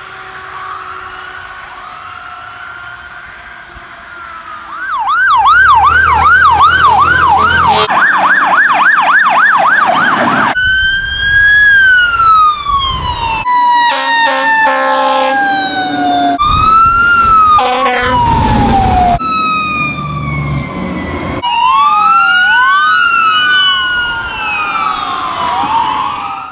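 Emergency vehicle sirens. First a wailing siren fading into the distance, then, about five seconds in, much louder sirens that cut abruptly from one to the next every few seconds: fast yelping sweeps, slow rising and falling wails, and near the end two sirens sweeping over each other.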